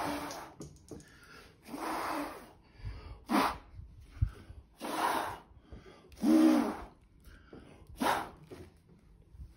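A person blowing hard on wet acrylic paint, pushing the poured paint across the surface. There are about six strong puffs of breath, one roughly every second and a half.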